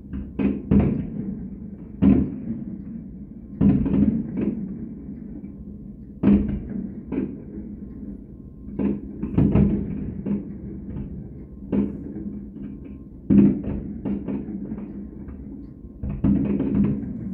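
Fireworks shells bursting in an irregular series of booms, sometimes two or three in quick succession, each trailing off in an echo.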